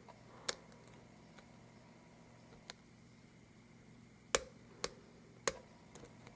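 Lock pick working the pins of an Abus 83/45 euro cylinder lock held in a false set: a few sharp, separate clicks, one early and three louder ones close together a little past halfway. The picker puts these clicks down to pin 2.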